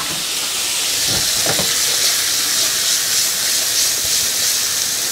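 Carrot pieces sizzling in melted butter in a hot frying pan, a steady hiss, with a couple of soft knocks about a second and a half in.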